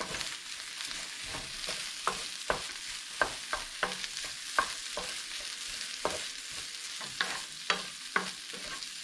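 Fried rice made with day-old rice, egg, peas and carrot sizzling in a frying pan as it is stir-fried, with a steady hiss and a utensil clacking and scraping against the pan at irregular intervals, about once or twice a second.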